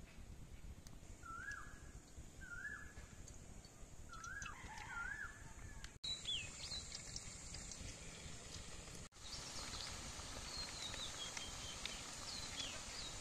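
Birds calling: several short warbling chirps in the first five seconds, then higher, falling whistles. From about nine seconds in, a faint steady hiss of balls deep-frying in hot oil in an iron wok.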